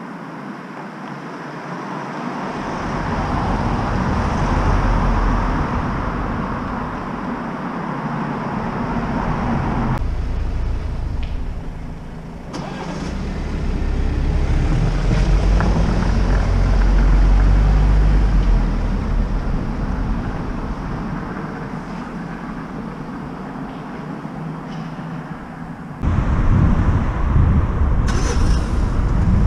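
Road traffic: cars passing through a town junction, the noise swelling and fading as vehicles go by, with two louder passes.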